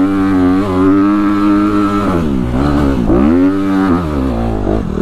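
Honda CRF250RX's single-cylinder four-stroke engine pulling hard up a dirt trail. Its revs hold steady, then drop and climb back a bit over two seconds in, again about three seconds in, and once more near the end.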